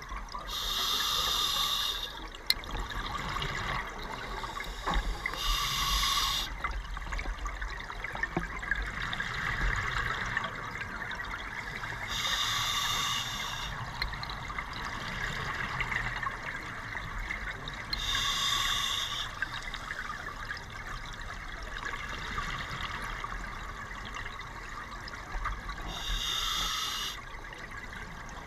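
Scuba diver breathing through an open-circuit regulator underwater: a hiss of inhaled air five times, about every six seconds, with exhaled bubbles gurgling and rising in between.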